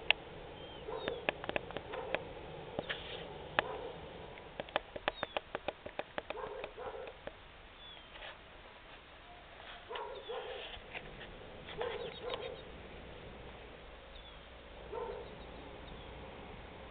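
Distant animal calls: short, low calls, often in twos, every couple of seconds. A run of sharp clicks comes between about one and seven seconds in.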